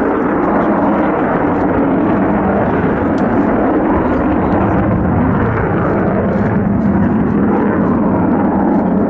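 Avro Vulcan bomber's four Rolls-Royce Olympus turbojets, loud and steady as the aircraft makes a banking display pass.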